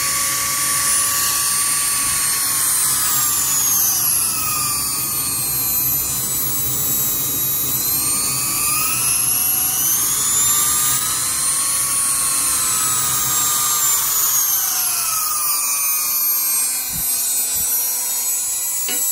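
Wen 2305 variable-speed rotary tool running free with no load, a loud high whine whose pitch falls and rises several times as the motor speed changes. A few light knocks come near the end.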